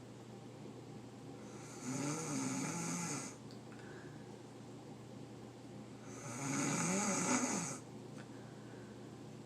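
A person snoring: two loud snores about four seconds apart, each lasting about a second and a half, with a wavering low pitch under a hiss.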